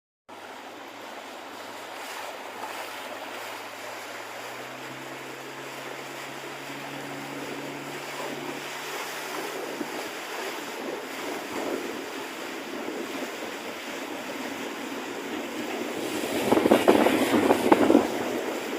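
Water rushing and wind on the microphone during a boat ride, with a low steady hum through the first half that fades out. It gets louder for a couple of seconds near the end.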